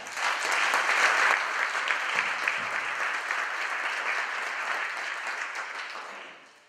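Audience applauding, loudest about a second in, then slowly dying away near the end.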